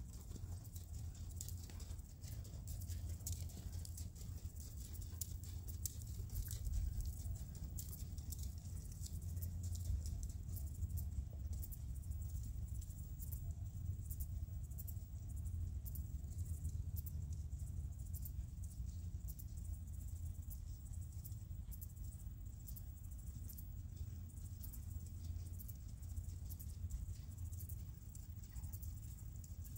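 A horse's hooves trotting on a sand arena, a faint patter of many small irregular beats under a steady low rumble.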